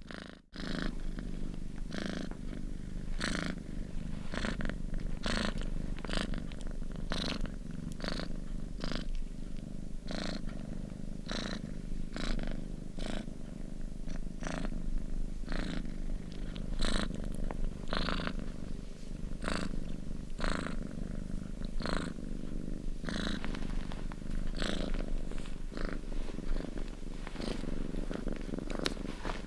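House cat purring steadily and close up, a continuous low rumble with a soft airy hiss about once a second as the purr cycles. The sound cuts out for a moment just after the start, then carries on.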